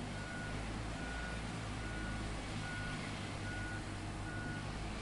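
Vehicle reversing alarm beeping, a single high tone repeating about every 0.8 s (six beeps), over a steady low engine hum.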